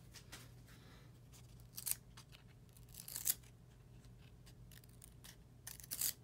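Stack of stiff chrome-finish trading cards (1998-99 Topps Chrome basketball) being thumbed through. Cards slide against one another in three short, faint swipes over a low steady hum.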